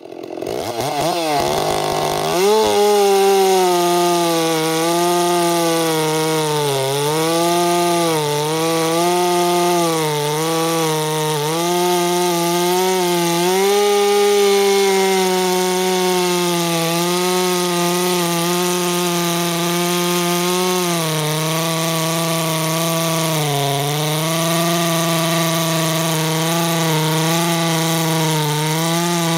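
Ported Stihl 064/066 hybrid two-stroke chainsaw with a 36-inch bar and .404 chain, revving up at the start and then running at full throttle while cutting down through a stack of big logs. Its high steady pitch sags briefly several times as the chain bites under load.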